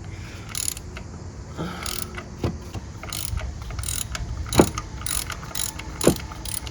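Socket ratchet wrench clicking in uneven runs as a 22 mm deep socket backs out the PCV valve's nut, with two sharper knocks about four and a half and six seconds in.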